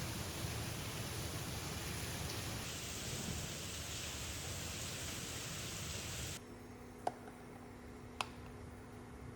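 A steady rushing hiss that stops suddenly about six seconds in, leaving a quieter, low steady hum with two short clicks.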